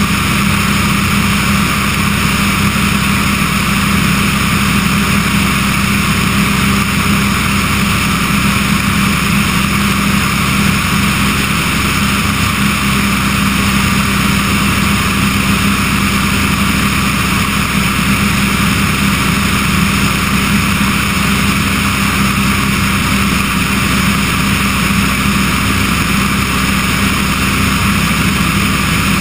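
Remos G3/600 light-sport aircraft in cruise: its Rotax 912 flat-four engine and propeller drone at a steady pitch, mixed with rushing air over a camera mounted outside on the wing strut.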